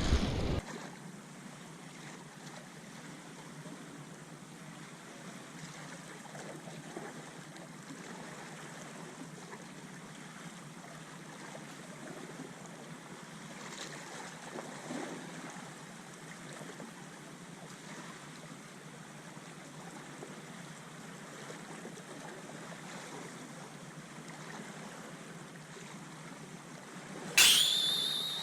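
Steady hiss of seawater lapping and wind. Near the end there is a brief, sharp, louder sound with a high thin tone.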